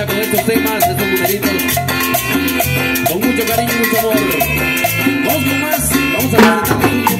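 Live tropical dance band playing an instrumental passage: a metal güiro scraping in steady rhythm with timbales, over electric bass, acoustic guitar and violin, with a loud percussion accent about six seconds in.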